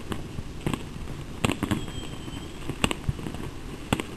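New Year's fireworks and firecrackers going off: about five sharp bangs at irregular intervals over four seconds, one followed by a short crackle, over a steady background noise.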